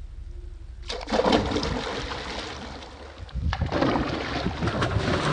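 Big redfish thrashing at the surface right beside the boat hull, water splashing and sloshing. It starts suddenly about a second in, eases briefly, then breaks out again about three and a half seconds in.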